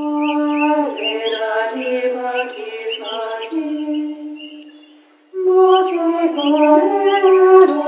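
Women's voices singing a slow, unaccompanied sacred chant in long held notes. The phrase fades to a brief pause about five seconds in, then the next phrase begins.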